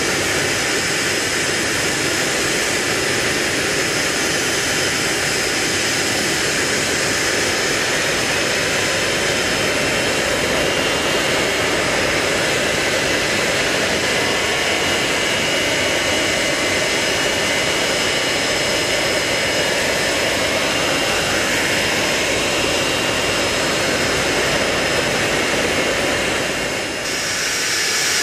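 The Hawker Siddeley Nimrod's Rolls-Royce Spey turbofan engines running steadily: a loud, continuous rush with a high whine held on several steady pitches, dipping briefly near the end.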